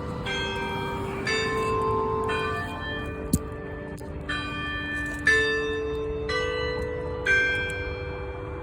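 Denny Chimes tower bells ringing a slow chime melody, a new note about once a second, each note ringing on under the next. A sharp click comes about three seconds in.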